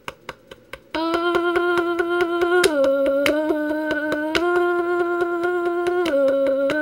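A man's voice holding a steady hummed note while his hand beats on his chest in quick, regular taps. The taps are heard alone for about a second before the note starts. The pitch drops a step and comes back up several times, a change he makes by tapping his chest.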